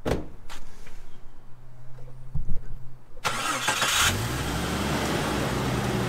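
A thump right at the start, then the Jeep Cherokee XJ's engine starting about three seconds in: a loud rush of noise with a rising note as it revs up, then a steady run.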